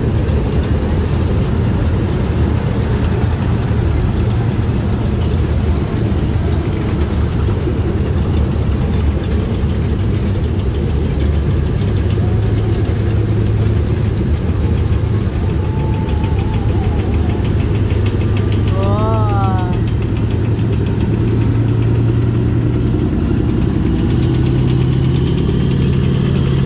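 Heavy diesel engines of tracked armoured military vehicles, KAAV amphibious assault vehicles among them, running steadily as the vehicles drive past, a continuous low rumble.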